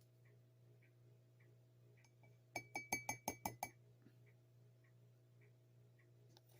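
A measuring spoon tapped quickly against the mug about eight times in just over a second, a run of ringing clinks, knocking the baking powder into the mug.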